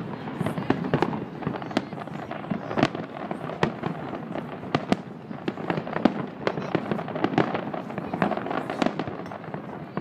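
Aerial fireworks shells bursting at a distance: a rapid, irregular string of sharp bangs, several a second, with no pause.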